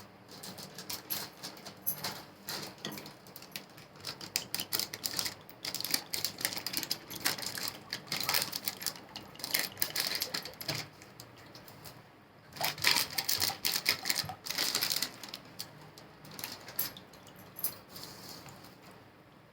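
Batter of soaked moong dal, chopped onion and flour being mixed by hand in a bowl: rapid, irregular clicking and crackling, louder in two spells with a short lull between them.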